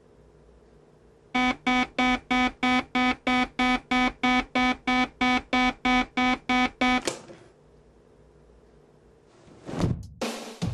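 Digital alarm clock beeping: a fast, even run of short high beeps, a little over three a second, that stops abruptly after about five and a half seconds. Drum-kit music comes in near the end.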